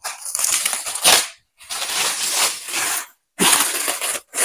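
Clear plastic stretch wrap crinkling and tearing as it is pulled off a cardboard box, in three long bursts.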